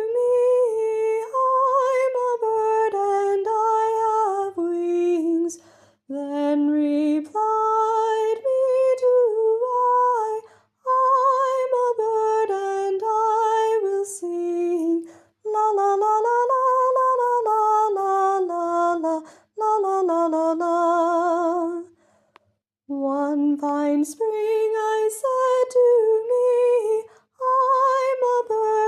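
A woman singing a slow melody alone, unaccompanied, in phrases a few seconds long broken by short breaths, with vibrato on some held notes.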